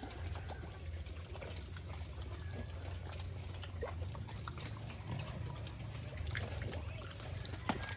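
Native pigs grunting, over a low steady hum and a thin, steady high-pitched whine, with a sharp click near the end.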